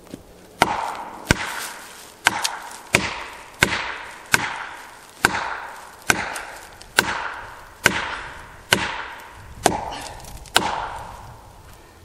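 Felling wedge being driven into a tree's back cut with an axe, about thirteen sharp blows roughly one a second, each leaving a short ring that fades, to tip the tree over.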